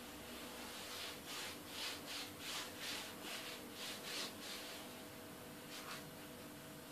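Quiet rubbing strokes of the butter and oil mixture being spread over thinly rolled börek dough, about two to three strokes a second for a few seconds, then a single stroke near the end.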